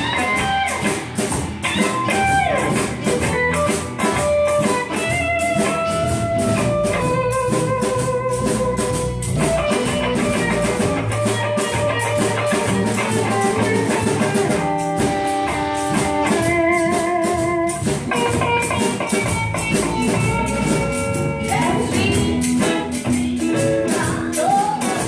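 Live blues band playing: a woman singing with vibrato over electric and acoustic guitars, bass guitar and a drum kit keeping a steady beat.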